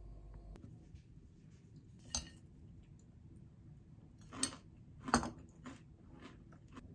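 Metal spoon clinking against a glass dessert cup while scooping granola and yogurt: a handful of light clinks, the loudest about five seconds in.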